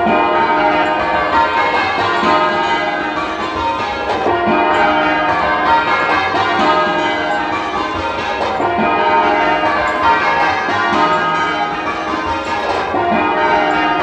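Change ringing on a ring of ten church bells, tenor 19 cwt in E-flat: a continuous, even stream of bell strokes, one bell after another.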